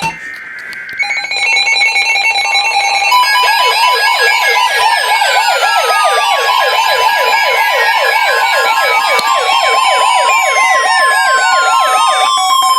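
Emergency Alert System alert tones sounding for a severe thunderstorm warning: steady tones overlaid with a fast warbling siren-like alarm and repeated falling sweeps, several alerts sounding at once. They build up about a second in and stop abruptly at the end.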